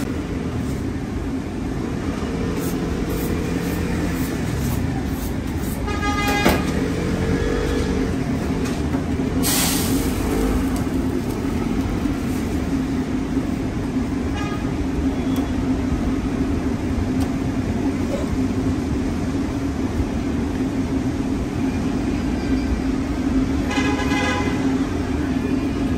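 Steady low drone of a restaurant kitchen's extractor hood and gas shawarma broiler. Brief ringing tones sound about six seconds in and again near the end.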